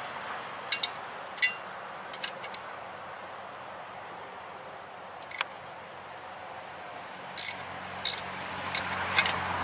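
Wrench working a lower-unit bolt on an outboard motor loose: a scattering of sharp metallic clicks and clinks, some in quick pairs or short runs, over a steady outdoor hiss.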